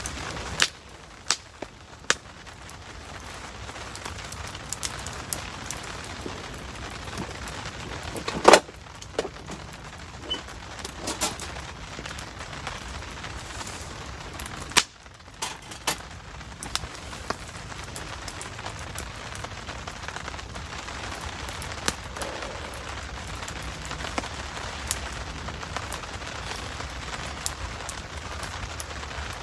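Wood campfire crackling, with scattered sharp pops, the loudest about eight and a half seconds in and again near the middle, over a steady hiss of rain.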